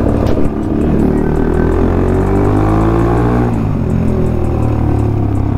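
Bajaj Pulsar NS200 single-cylinder engine under way through a cracked exhaust bend pipe. Its pitch rises for about three seconds as the bike accelerates, then falls off when the throttle closes. The leaking bend pipe gives the exhaust a raw, cracking note.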